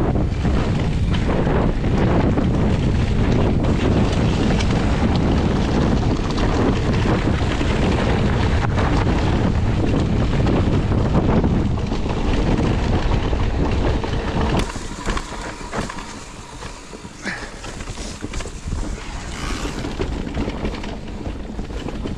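Heavy wind buffeting on an action camera's microphone over mountain-bike tyres rolling on gravel. About fourteen and a half seconds in it cuts abruptly to a quieter mix of tyres on a dirt forest trail with scattered clicks and rattles.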